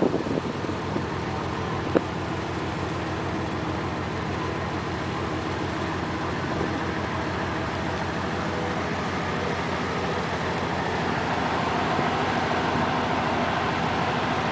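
A ship's engine running steadily while the vessel is underway, a fast even pulsing under a steady hiss. There is a single brief knock about two seconds in.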